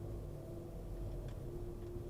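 Car running with a low steady rumble and a faint steady hum over it.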